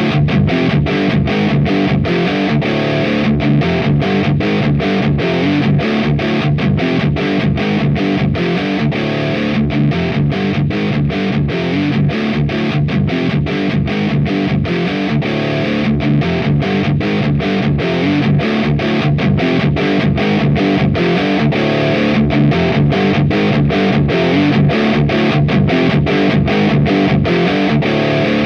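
High-gain distorted electric guitar through an AMT Bricks R/S Lead 12AX7 tube preamp, playing a steady, rhythmic metal riff at about three chugs a second, layered with a looper.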